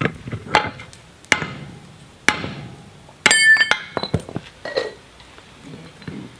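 Hammer blows on a steel drift being driven through the square hardy hole of a striking anvil block: a run of sharp metal strikes at uneven spacing. One strike, a little past three seconds in, rings out with a bright metallic ring for about half a second.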